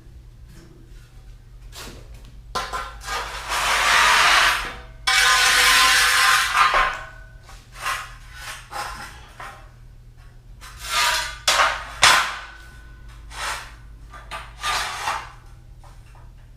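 Metalwork on a fresh steel weld: several bursts of harsh, scratchy noise, the two longest lasting about two seconds each, then shorter bursts, over a low steady hum.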